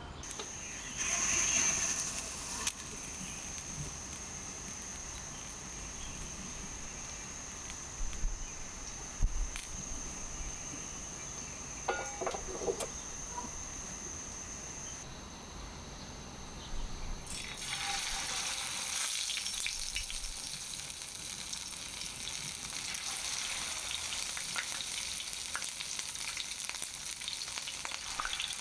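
Chicken legs frying in oil in a pan, sizzling. A few knocks and clicks come in the first half. About two-thirds of the way through, the sizzle swells into a dense, louder crackle that keeps going.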